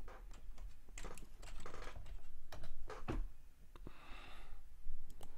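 Typing on a computer keyboard: irregular keystroke clicks for about three seconds, then a pause and a couple more clicks near the end.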